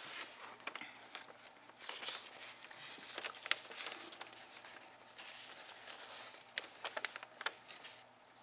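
Folded paper instruction leaflet being pulled out of a cardboard box and unfolded by hand: paper rustling and crinkling, with a sharp crackle midway and a quick run of crackles later on.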